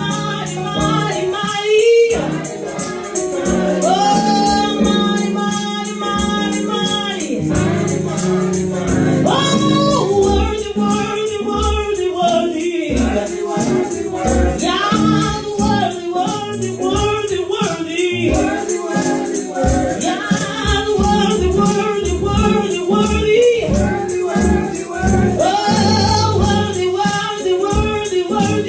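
Gospel worship music: voices singing over live accompaniment with a steady beat.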